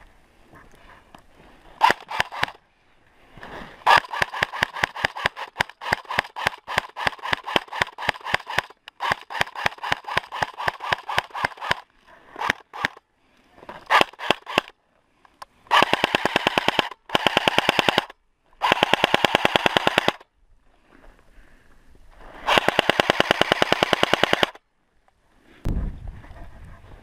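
Airsoft electric guns firing. A long run of rapid shots is followed by several dense bursts of full-auto fire, each one to two seconds long and cutting off sharply.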